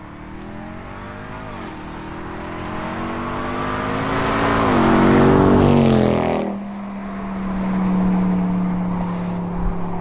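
Ram 1500 TRX's supercharged V8, through an AWE 0FG exhaust, accelerating hard past on a fly-by, its pitch climbing with a gear change about a second and a half in. It is loudest as it passes, about five to six seconds in, then drops suddenly to a steady low drone as it moves away.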